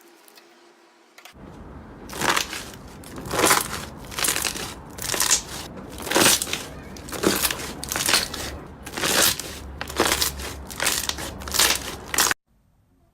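Slime being squeezed and pressed by hand, a run of loud crackling crunches about once a second that stops suddenly near the end.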